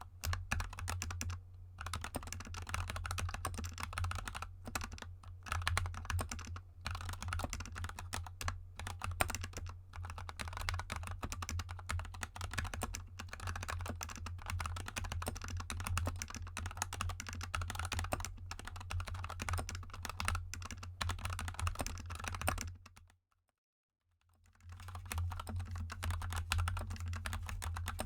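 Fast, continuous typing on a GK64 mechanical keyboard with lubed Gateron Yellow linear switches and XDA keycaps: a steady stream of key clicks. There is a cut to complete silence for about a second and a half a few seconds before the end, after which the typing resumes.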